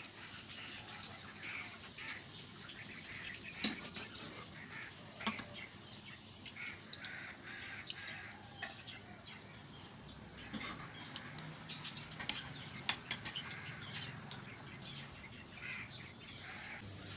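Oil sizzling steadily in a frying pan around egg-soaked bread slices, with scattered sharp clinks of a metal spatula against the pan as the slices are turned and lifted out. The loudest clinks come about 4 s in and 13 s in.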